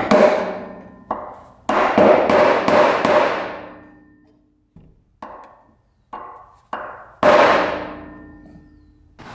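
Hammer blows on a screwdriver chipping at a rusted-in wheel bearing race in a 1996 Yamaha YZ125 dirt bike's wheel hub, each metallic strike ringing out as it decays. There are about ten strikes: several hard ones in the first three seconds, three lighter ones, then another hard blow near the end. The race is rusted solid in the hub and barely gives.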